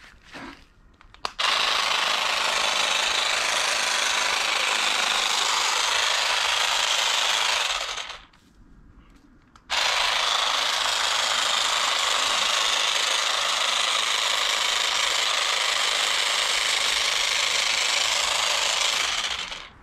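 Small power hedge trimmer running while trimming boxwood, in two steady runs of about six and ten seconds with a short pause between.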